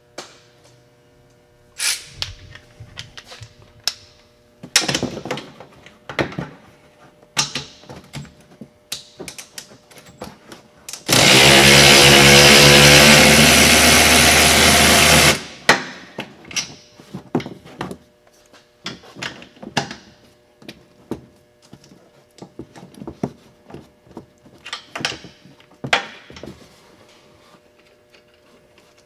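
A handheld power tool runs steadily for about four seconds near the middle, spinning off the top nuts of the front strut mount. Before and after it come scattered clicks and metal knocks of hand tools working on the same nuts.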